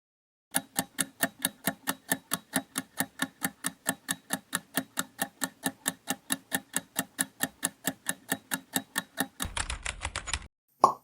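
Countdown timer sound effect: a fast, even run of ticks, about five a second, that ends in a short buzzy burst near the end, followed by a brief pop.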